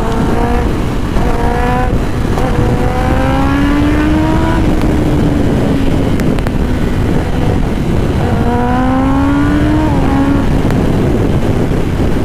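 Kawasaki ZX-10R inline-four sportbike engine under hard acceleration at highway speed, the revs climbing in several long rises with drops between, the longest rises about two and eight seconds in. Heavy wind rush on the rider's camera lies under it.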